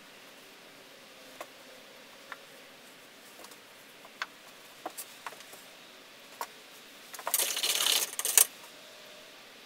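Scattered light clicks and taps of a paintbrush at work on a painted wooden board, then about seven seconds in a loud rustle of a nylon puffer jacket as the painter bends down, ending in a sharp knock.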